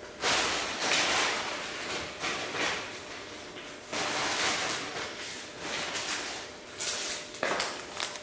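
Rustling and handling noises: several soft swishes and scrapes, the longest just after the start and about four seconds in, with a short sharp one near the end.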